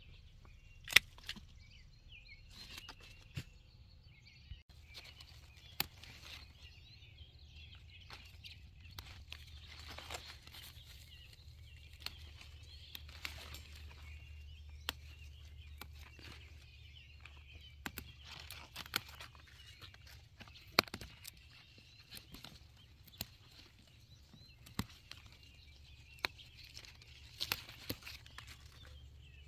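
Faint birds chirping in the background over a low steady hum, with scattered sharp clicks and rustles from plants and the phone being handled.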